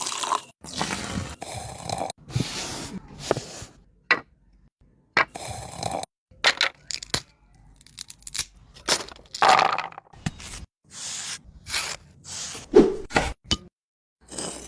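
A quick succession of short building-work sounds, scraping, cracking and knocking, each cut off abruptly and followed by the next, with several brief silent gaps.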